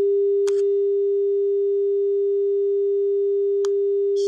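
Steady 400 Hz pure sine tone played from an online tone generator through computer speakers, with a few short clicks: one about half a second in and two near the end.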